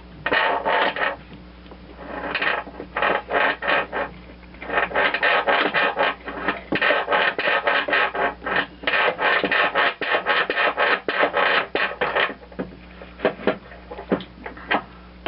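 Mower deck's blade-belt tensioner pivot arm being worked back and forth off its steel shaft, metal scraping and clicking in quick irregular strokes that thin out near the end. The arm is sticking on a burr raised on the worn shaft end.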